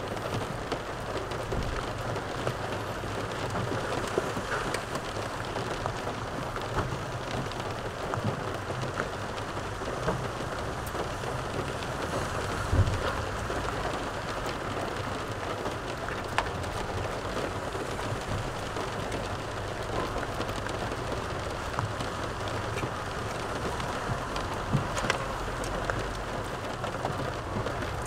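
A steady hiss fills the car's cabin, with scattered small clicks and scrapes of a utensil against a plastic takeaway container while he eats; the sharpest click comes about 13 seconds in.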